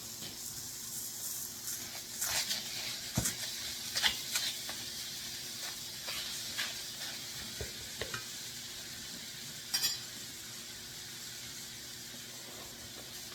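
Ground deer meat sizzling as it browns in a hot skillet, with a utensil scraping and knocking against the pan as it is stirred, the sharpest knocks about two and four seconds in.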